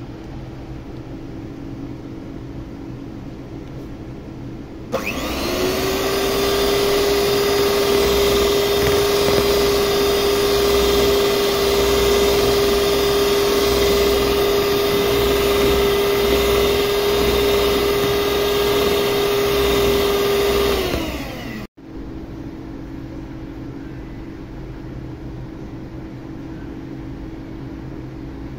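Electric hand mixer beating egg whites: the motor starts about five seconds in with a quick rise in pitch, runs at a steady high whir, then winds down and stops near the two-thirds mark. A quieter steady hum is heard before and after.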